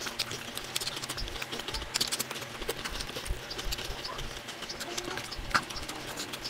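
Sped-up eating sounds: rapid open-mouth chewing and lip-smacking on fried fish, with fingers picking at the flesh, heard as a quick run of short wet clicks.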